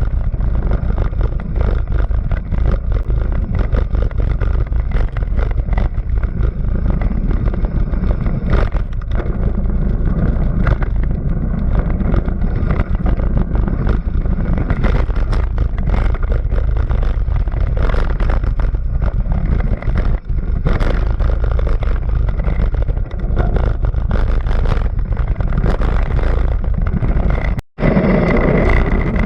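Racing car engine running hard with continuous loud rumble and many short sharp clicks and knocks. Near the end it cuts out abruptly for an instant and comes back different, with a steady high whine.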